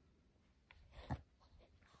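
Near silence: room tone with a couple of faint, soft taps about a second in.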